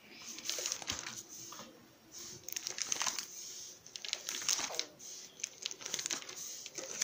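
Plastic pocket pages of a trading-card binder crinkling and rustling in repeated bursts as a hand presses on them and turns a page.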